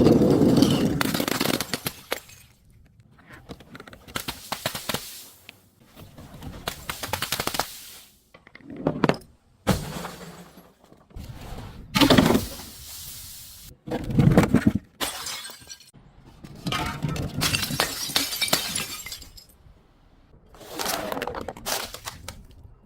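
Glass and other brittle objects being broken and crushed, in a series of about nine separate crushes. Each crush is a second or two of crackling, crunching breakage, with short pauses between them.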